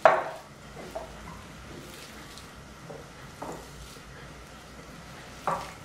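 Hands squeezing and kneading a moist mixture of chopped vegetables, mashed potato and flour in a glass bowl: faint, soft squishing, with a short louder sound right at the start.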